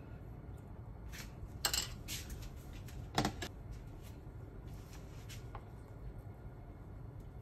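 Kitchen handling sounds: a few light clicks and clatters, the sharpest about three seconds in, as a metal spoon is put down and a plastic container of chopped green onions is picked up over a stainless steel counter.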